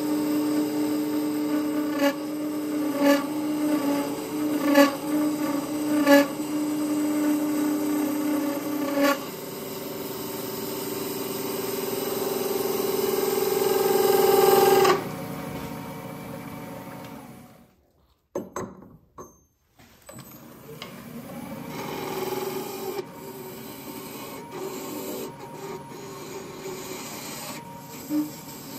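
A hand-held turning tool cutting a spinning solid brass workpiece on a wood lathe: a loud scraping with steady ringing tones and a few sharp ticks. About halfway the sound drops away to a brief near-silence, then quieter cutting resumes.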